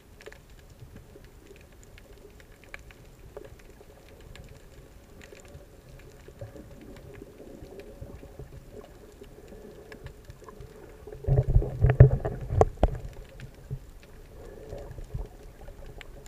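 Muffled underwater sound picked up by a submerged camera: a steady low hum with scattered small clicks. About eleven seconds in comes a louder burst of low knocks and rushing water lasting a couple of seconds, then it settles back to the hum.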